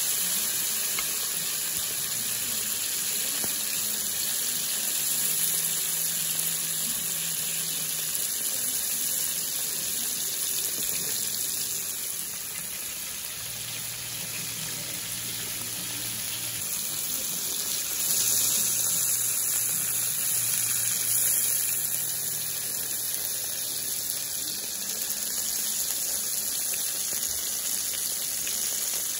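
Steady sizzling hiss of a freshly roasted tomahawk steak and its fat and juices on the plate.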